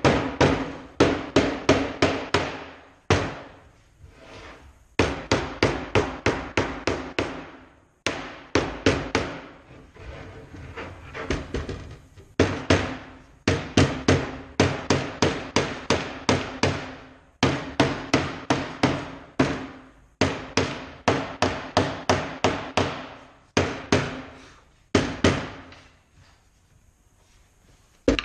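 Rubber mallet tapping a T-track into a routed groove in an MDF table top: quick, even strikes at about four a second, in runs of several seconds broken by short pauses.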